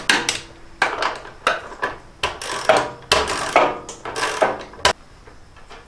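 Ratchet wrench clicking in short strokes on bolts of a Cub Cadet rototiller, with metal tool clatter and a sharp knock near the end.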